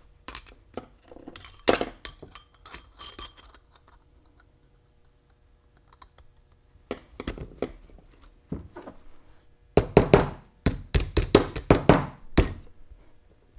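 Steel differential clutch plates and gears clinking and ringing as they are handled and set down on a metal bench. After a pause, a rapid string of sharp taps from a small hammer striking the Powr-Lok clutch-pack case half.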